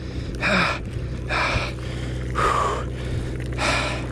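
A man breathing hard in quick gasps, about one breath a second, four in all, from the strain of fighting a fish on rod and reel. A steady low engine hum runs underneath.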